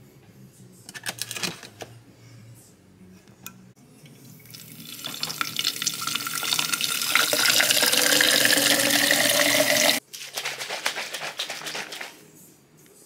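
Tap water running into a plastic protein-shaker bottle through its mixer grid, growing louder with a faint tone that rises in pitch as the bottle fills, then stopping abruptly. A few light clicks come about a second in, and about two seconds of rapid rattling follow the water as the capped shaker is shaken.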